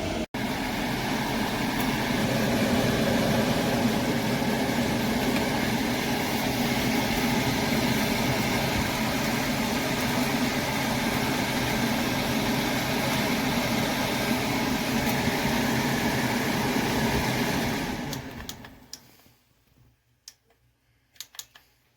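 HG Power 6-inch ventilation fan running, a loud steady rush of air with a low hum. About 18 seconds in it winds down and stops, followed by a few faint clicks.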